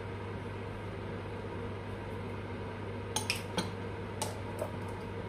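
A metal teaspoon and a small salt tin clinking lightly, about five clinks in the second half, as salt is spooned into a bowl of chicken marinade. Under them runs a steady low hum.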